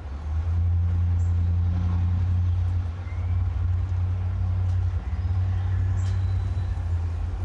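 A low, steady machine rumble that strengthens just after the start and dips briefly about three and five seconds in, with a faint click about six seconds in.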